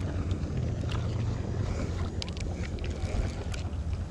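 Wind buffeting the microphone, a steady low rumble, with a few faint clicks over it.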